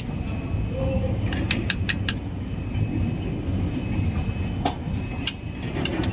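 Steady low rumble of heavy machinery running, with sharp clicks from truck wiring connectors being handled: a quick run of four about a second and a half in and a few single ones near the end.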